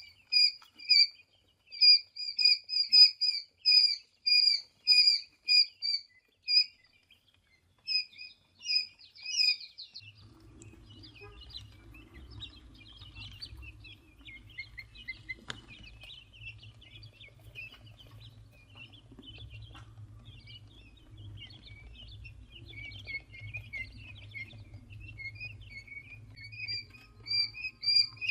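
Tiny birds chirping: loud, evenly repeated high peeps about twice a second, which give way about ten seconds in to softer, busier chirping over a low hum.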